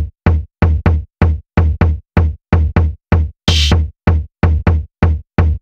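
Background electronic music: a steady drum-machine beat of deep thuds, about three a second, with a cymbal-like crash about three and a half seconds in.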